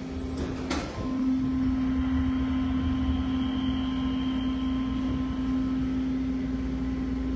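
Passenger elevator car riding between floors: a steady hum with a low rumble under it. A short high beep and a click come near the start.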